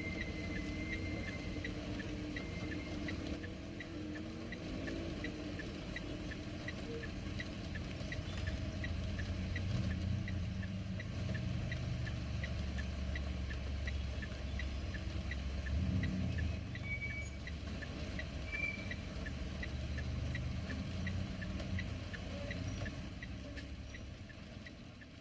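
Car hazard-light flasher ticking steadily at an even pace inside a car, with rain pattering on the body and a low rumble under it; it fades out near the end.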